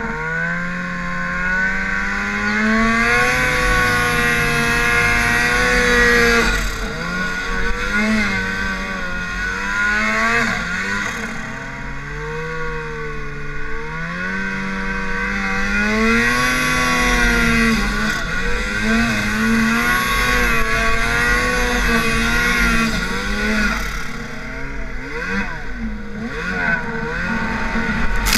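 Turbocharged Arctic Cat snowmobile engine pulling through deep powder snow, its pitch rising and falling again and again as the throttle is worked.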